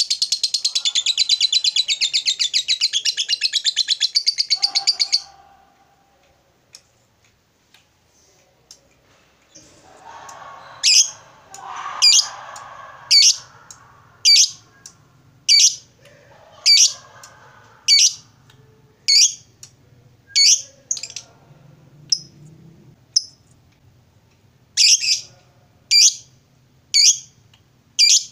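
Lovebird giving a long, loud, rapid chattering trill (the 'ngekek') that stops about five seconds in. After a pause, from about eleven seconds in, it repeats short sharp high calls about once every second, with some softer chatter under the first few.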